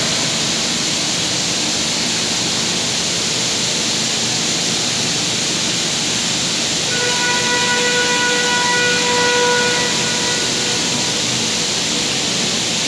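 Heavy-component industrial cleaning machine running with a steady, loud hiss. From about seven seconds in, a steady pitched tone with overtones sounds over it for about four seconds.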